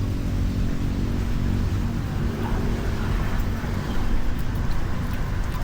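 A motor vehicle engine running with a steady low rumble and hum.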